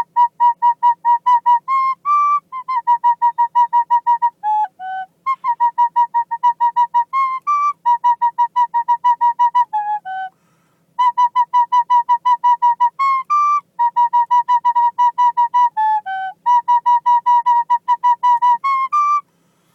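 Recorder playing a quick tune of short tongued notes, mostly the same note repeated several times a second, with brief steps up and down in pitch and a short pause about halfway.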